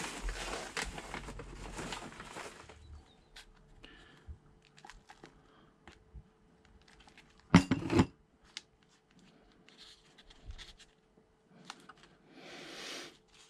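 Potting mix being scooped, poured and pressed by hand into a plastic seedling cell tray: rustling and scraping with scattered small clicks, and one louder knock a little past halfway.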